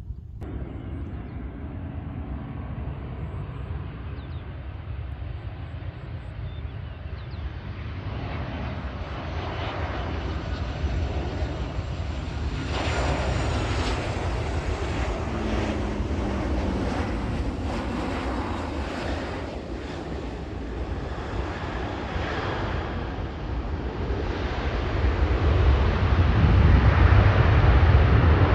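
Jet airliner passing close by. Its engine noise builds steadily, with a falling whine about midway and a deep rumble at its loudest near the end.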